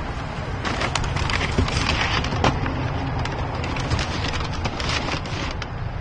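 Paper shopping bags and a plastic carrier bag rustling and crinkling as they are handled and set down on a car seat, with irregular crackles throughout, over a steady low rumble.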